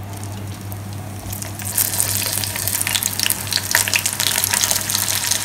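Breadcrumb-coated chicken pieces sizzling and crackling in hot oil in a kadai, growing much louder about two seconds in as more pieces go into the oil for their second frying.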